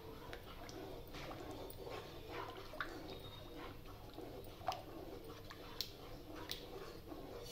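Spoon stirring milk mixed with maida flour, clinking sharply against the vessel a few times over a faint steady hum.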